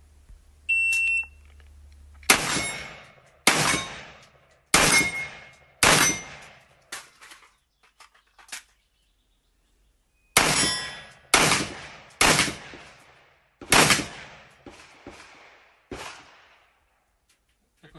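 Electronic shot-timer start beep, then an AR-15 rifle in .223 fired in two strings of four shots, roughly one shot a second, with a pause of about four seconds between the strings. Fainter sharp clicks and knocks fall between and after the strings.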